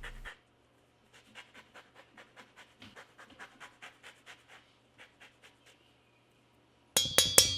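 Orange being zested on a fine rasp grater: a run of short, faint scraping strokes, about three or four a second. Near the end, loud clinks of metal against a bowl, with ringing.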